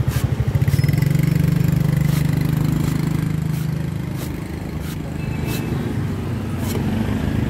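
A cleaver chopping into the husk of a young green coconut, a sharp knock about once a second, over the steady drone of a small engine running close by, which is the loudest sound.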